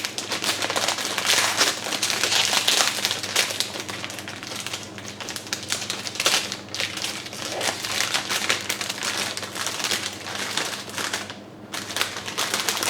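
Plastic snack bag of Takis chips being handled and rummaged in, giving a dense, irregular crinkling crackle with a short lull near the end.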